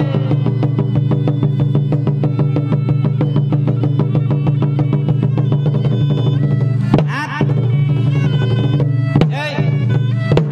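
Cambodian pinpeat ensemble playing: drums keep a quick beat under sustained melodic tones. In the second half the music thins and breaks briefly a few times.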